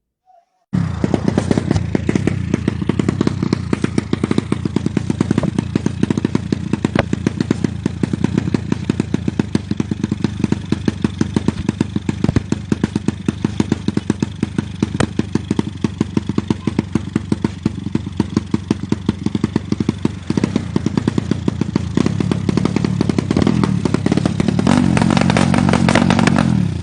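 Drag-racing motorcycle engine running loudly, with rapid, even exhaust pulses; it starts abruptly just under a second in and the revs climb near the end.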